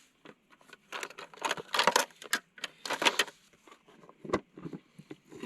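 A utensil clinking and scraping in a cooking pot in short, irregular bursts while pasta is stirred and scooped up, with a sharp clack about four seconds in.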